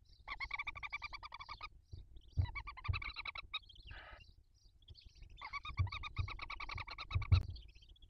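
Barn owls in the nest box giving rapid, rattling chitter calls in three runs, with a short hiss between the second and third. A few dull thumps come from the birds moving about on the nest floor.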